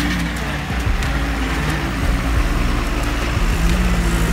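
Diesel engine of a Tata bus running as the bus drives through thick mud and passes close by, a steady low rumble.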